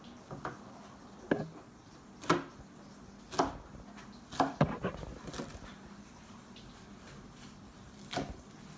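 Chef's knife chopping through napa cabbage onto a plastic cutting board: sharp single knocks about a second apart, with two in quick succession around the middle, then a pause before a last chop near the end.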